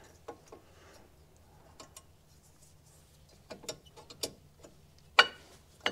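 Light metallic clicks and clacks of new Winmax W6.5 race brake pads being pressed into a disc brake caliper bracket, their steel backing plates knocking against the bracket and clips. The clicks come scattered and irregular, with a sharper knock about five seconds in.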